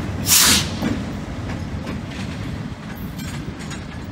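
EMD MP15DC diesel switch locomotive shoving a cut of boxcars slowly, with a steady low rumble of engine and rolling cars and scattered faint wheel clicks. A brief loud hiss comes about half a second in.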